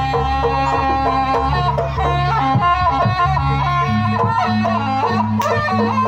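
Jaranan music: a loud, wavering melody on a slompret-type reed pipe with bending notes, over low sustained tones and a repeating beat.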